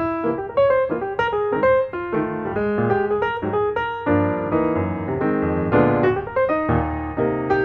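Background music: a lively melody of quick, separate notes over a steady accompaniment.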